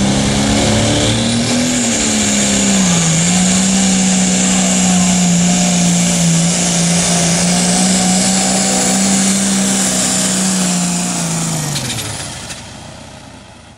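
Diesel pulling tractor under full load dragging a weight-transfer sled, its engine note heavy and steady with a high whistle over it. The note sags briefly about three seconds in and recovers. Near the end the revs drop and the sound fades as the engine comes off the throttle.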